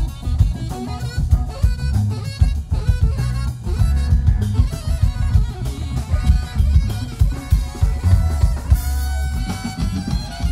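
Live blues-rock band: a saxophone plays a melodic solo over a drum kit and bass.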